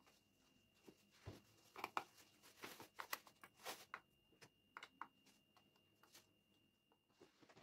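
Faint scattered clicks and rustles of small objects being handled, busiest in the middle, over a faint steady high-pitched whine.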